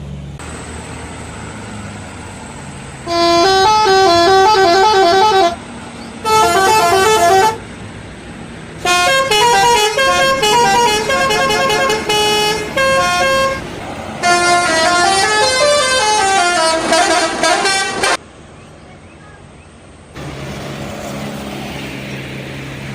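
Bus telolet horn, a multi-trumpet musical air horn, playing four bursts of quick stepping melodies, the last two long. Between the bursts an engine runs steadily.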